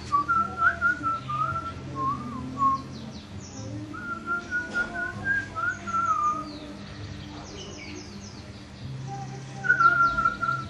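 A man whistling a tune along with recorded music, in three phrases: one at the start, one in the middle and one starting near the end. Birds chirp in the pauses.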